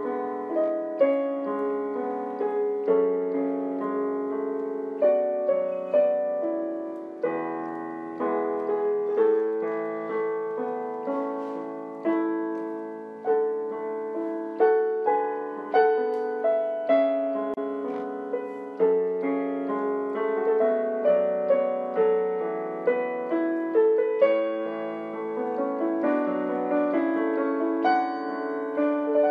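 Background piano music: a slow run of single struck notes and chords, each ringing and fading.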